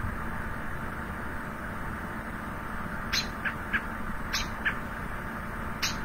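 American robin alarm calls: short, sharp repeated peeps or yeeps, each a high note that drops quickly and is followed by one or two softer, lower notes. Three calls come in the second half, over a steady background hiss.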